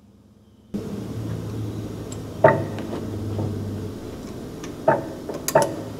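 A few sharp metallic clicks and knocks from parts being handled at a tractor's fan drive, the loudest about two and a half seconds in and two more near the end, over a steady low hum that starts suddenly about a second in.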